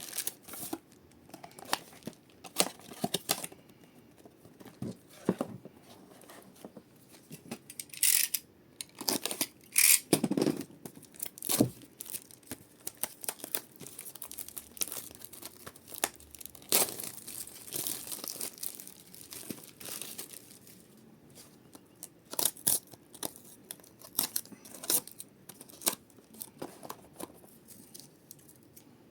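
Pokémon card booster pack wrappers being torn open and crinkled: irregular sharp tearing and rustling, busiest in the middle.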